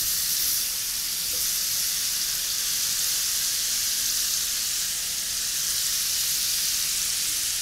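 Melted butter sizzling steadily in a 12-inch cast iron skillet, hot from the oven, as cinnamon-sugar pear slices are laid into it to fry.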